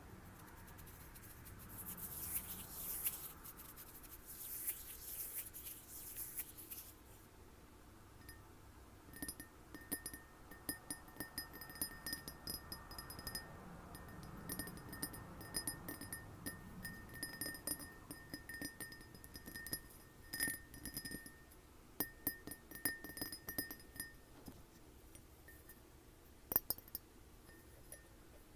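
Glass being tapped in quick runs of light taps, each ringing at the same clear pitch, starting about eight seconds in. Before that there are a few seconds of high hissing noise.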